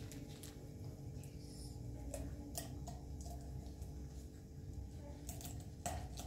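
Several light, sharp clicks and taps scattered over a low, steady hum.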